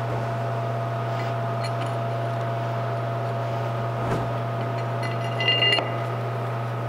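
Shop heater running with a loud, steady low hum. A brief cluster of metallic clinks comes about five and a half seconds in, as the brake rotor and hub assembly is handled on the spindle.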